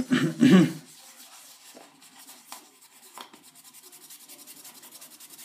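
Cloth rubbing toothpaste in small circles on a plastic car turn-signal lens, polishing off the dull, faded surface layer. It gives a soft scratchy scrubbing that settles into an even rhythm of about seven strokes a second, after a louder burst in the first second.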